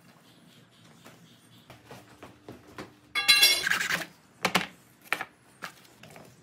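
Hacksaw cutting steel tubing: a long rasping stroke with a metallic squeal about three seconds in, followed by three shorter, sharper sounds.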